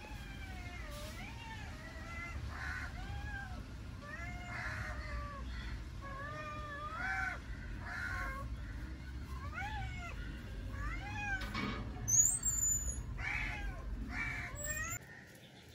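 Kitten meowing over and over, short mews that rise and fall in pitch, about one a second, with a brief high chirp about twelve seconds in.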